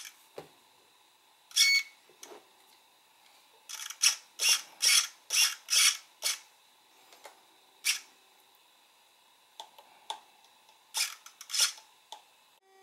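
Small servos in the Walkera Furious 320's arms tilting the motor pods forward and back as the transmitter sticks are moved: a string of short mechanical whirs, several in quick succession about four to six seconds in and a few more near the end.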